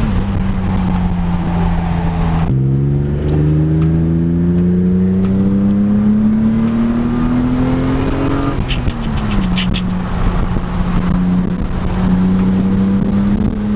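BMW E36 engine and newly fitted aftermarket exhaust while driving. The note holds steady, then drops sharply about two and a half seconds in, as with a gear change. It climbs steadily under acceleration for about six seconds, then falls back and holds steady. A short run of light clicks comes just after the fall.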